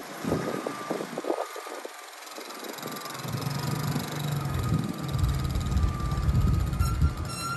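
Small engine of a side-by-side utility vehicle running close by, a low rumble that comes in about three seconds in as the vehicle drives up.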